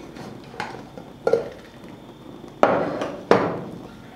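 Aluminium Butterfly Friendly pressure cooker lid being twisted open and taken off, metal on metal: a few light knocks, then two sharp clanks with a short ring, about two and a half and three and a quarter seconds in.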